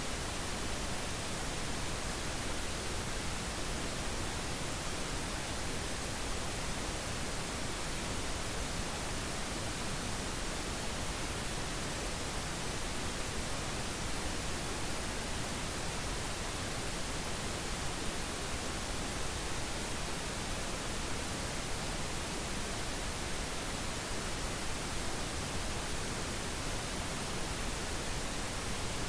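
Steady pink noise: an even, unchanging hiss spread across all pitches, with no events or changes.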